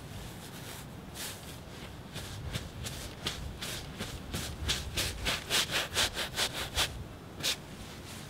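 Bristle paintbrush scrubbing oil paint onto a large stretched canvas: a run of short rasping strokes that come faster and louder a little past the middle, about five a second, then one last stroke near the end.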